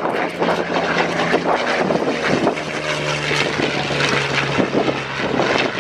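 Propeller-driven warbird's piston engine droning overhead during a flypast, its pitch dropping as it passes.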